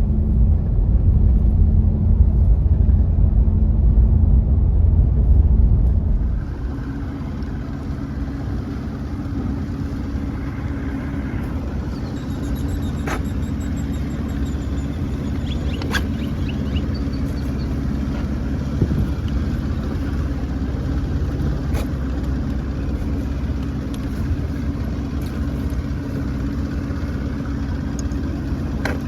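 An engine running steadily. For about the first six seconds a loud low rumble dominates, then it settles into a quieter, even hum, with a few sharp clicks.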